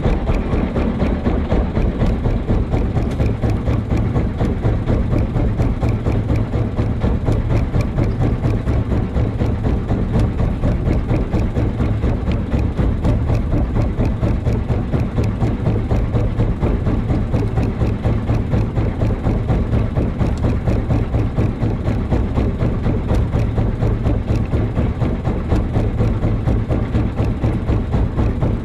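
Fishing boat's inboard engine idling, a steady low running sound with a rapid, even pulse.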